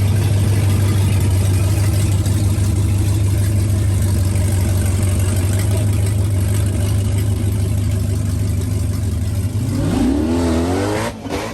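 Drag-racing cars' engines running with a loud, steady low rumble on the line. About ten seconds in, the pitch rises quickly as they accelerate away, then the sound drops off and turns uneven near the end.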